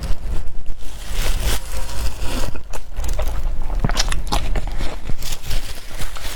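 Close-miked eating sounds: chewing with irregular short smacks and crunches over a steady low rumble.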